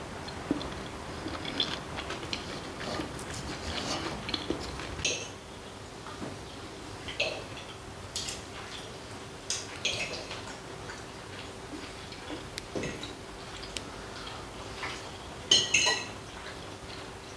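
Table eating sounds: forks and knives clinking and scraping on ceramic plates in scattered light clicks, the loudest cluster of clinks near the end. A faint steady hum sits underneath.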